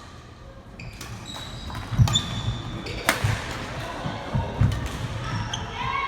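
Indoor court play: irregular thuds on a hard floor, sneakers squeaking, and one sharp crack about three seconds in, all echoing in a large hall.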